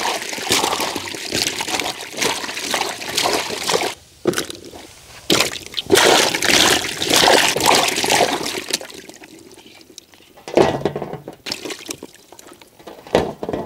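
Water splashing and sloshing in a large aluminium basin as hands scrub bell peppers under the surface, in bursts that are loudest in the middle, then dying down to a few sloshes and drips as the peppers are lifted out.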